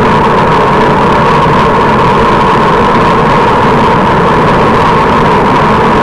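Steady wind and road-tyre noise of a road bike at speed, picked up by a camera mounted on the bike, with a steady hum running through it.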